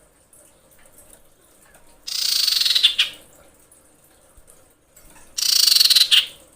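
Female common iora (cipoh) calling to attract a male while in breeding condition. Two fast rattling calls, each about a second long and about three seconds apart, each ending on a lower note.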